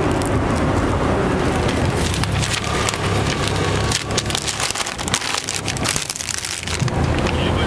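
Paper wrapper crinkling and rustling in gloved hands as a folded waffle is wrapped in it, in dense crackles from about two seconds in, over a steady low background rumble.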